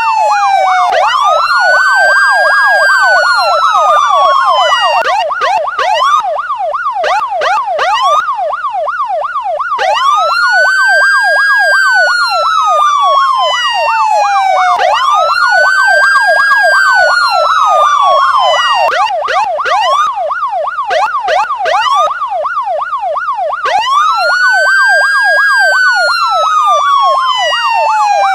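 Electronic police car siren running in two tones at once. A fast yelp sweeps up and down several times a second throughout, and a slower wail comes in four times over it, each rising quickly and then falling over about four seconds.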